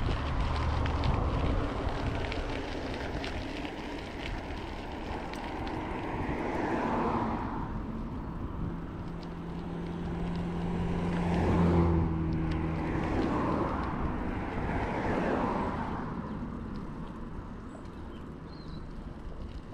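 Cars driving past one after another on the road alongside, each one swelling and fading, over a steady rush of noise from the moving bicycle. About halfway through, one vehicle's engine hum is held for a few seconds, then fades as it passes.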